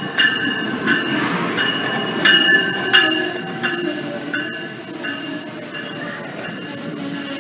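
Amtrak train behind an ACS-64 electric locomotive pulling into a station, its coaches rolling past close by with a steady rumble. High ringing squeal tones pulse about every two-thirds of a second, loudest in the first three seconds and fading after.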